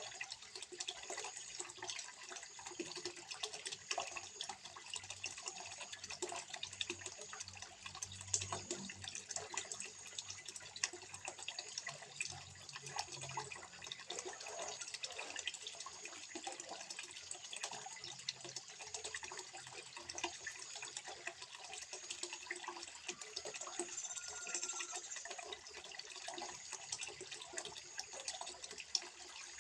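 Water trickling steadily into a small fish pond, a continuous splashing patter with many small drips.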